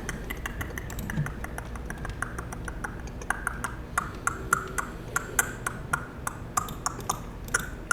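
A quick, irregular run of light clicks and taps, several a second.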